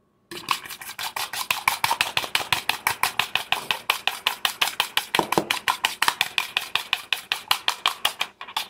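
A fork beating eggs in a bowl, clicking against its side in a quick, even rhythm of about seven strokes a second, with a brief pause near the end.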